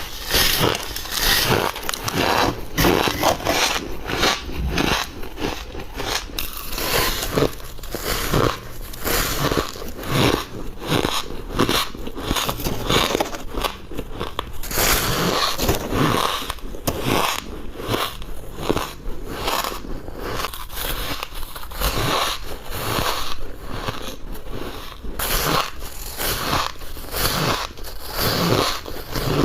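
A person biting into squeaky ice, giving a long run of sharp, crackly crunches in quick succession.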